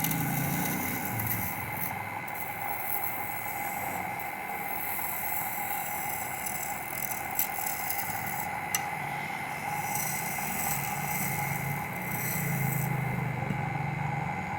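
Wood lathe running with a steady hum while a turning tool scrapes and cuts the spinning wood. There are two sharp ticks near the middle.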